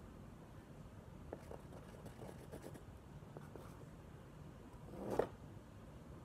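Paintbrush scratching and dabbing paint onto a textured canvas: faint scattered scrapes, with one louder scrape about five seconds in.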